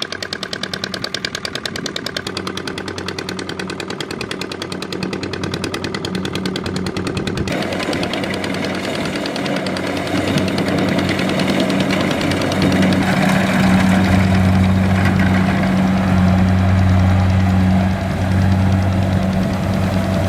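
Engine of a rice-harvesting farm machine running with a fast, even chugging. About seven seconds in, the sound changes to a heavier run with a strong low hum, and it grows louder toward the end.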